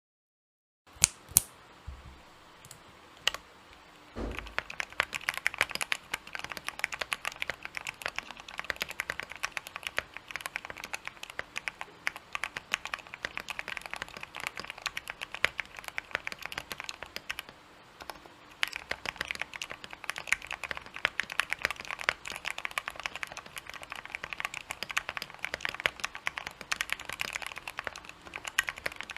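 Custom Tofu60 mechanical keyboard with Gateron Black Ink v2 linear switches, a polycarbonate plate with PE foam mod, Durock v2 stabilizers and Cherry keycaps, being typed on. A few separate key presses about a second in, then fast continuous typing from about four seconds, with a brief pause past the middle.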